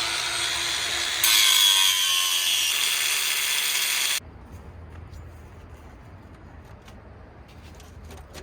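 Bauer 20V brushless cordless 4-1/2 in angle grinder running with a steady whine. About a second in, the disc bites into the rusted steel frame and a louder, harsh grinding noise joins the whine. The grinder cuts off suddenly about four seconds in.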